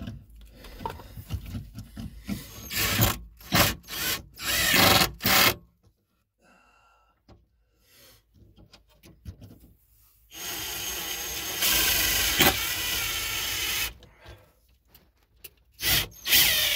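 Cordless drill/driver driving mounting screws: several short bursts with knocks of handling, then one longer steady run of about three and a half seconds past the middle, and a couple more short bursts near the end.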